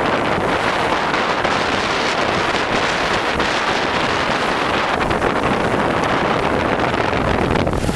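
Wind buffeting the microphone over a steady rush of water and motor from a motorboat under way.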